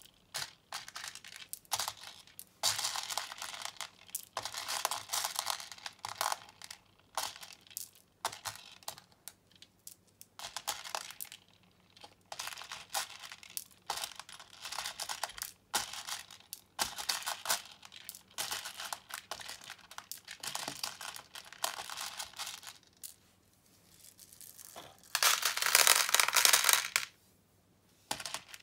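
Loose plastic beads rattling and clicking as hands stir and pick through a pile of them on a tabletop, in short irregular bursts. A louder, longer rush of beads comes near the end.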